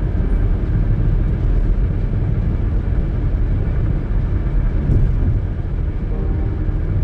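Car travelling at highway speed: a steady low rumble of road and engine noise.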